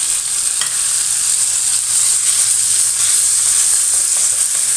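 Chopped onion, garlic, peppers, carrot and tomato sizzling steadily in hot olive oil in a pan, a continuous high-pitched hiss of a sofrito frying.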